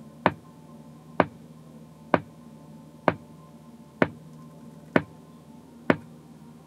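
Click track of sharp single clicks evenly spaced a little under a second apart, seven of them, over a faint steady hum. It is the test signal used to time-align car-audio speakers, setting each speaker's DSP delay so that its sound reaches the driver's seat at the same moment.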